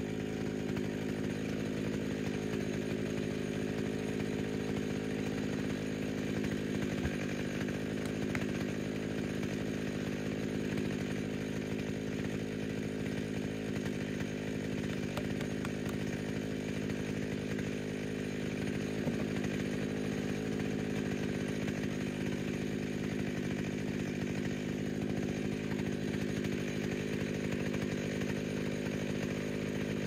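Pioneer P60 two-stroke chainsaw mounted on a log mill, idling steadily with no cutting load, its pitch starting to fall at the very end as it is shut down.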